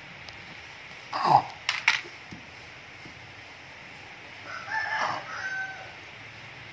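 A drawn-out animal call of a few held notes, about halfway through. Near the start comes a short falling cry, followed by two sharp clicks.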